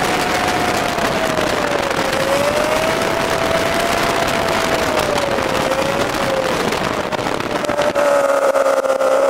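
Open dune buggy on a VW Beetle chassis driving on the road: wind rushes and buffets over the microphone, with the air-cooled flat-four's note rising and falling underneath. About eight seconds in the wind noise drops away as the buggy slows in traffic, leaving a steadier engine hum.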